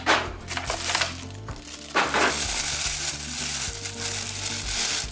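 Clear plastic bag crinkling and rustling as hands unwrap a small vinyl figure from it, with some handling of a clear plastic tray. There are sharp crackles near the start and around two seconds in, then a longer stretch of crinkling.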